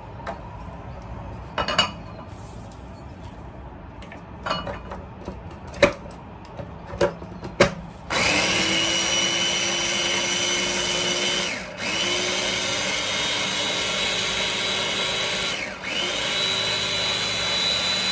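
Small electric mini chopper chopping coriander stems, run in three pulses of about four seconds each with brief pauses between, the motor whine rising as each pulse spins up. Before the first pulse come a few light clicks and knocks as the bowl is filled and the motor head is set on.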